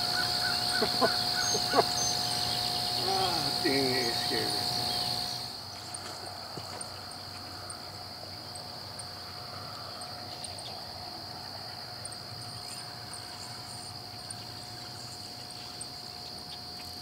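Steady high-pitched buzz of an insect chorus on a summer riverbank. The first five seconds are louder, with a few short calls and clicks, then the sound drops abruptly to the quieter buzz alone.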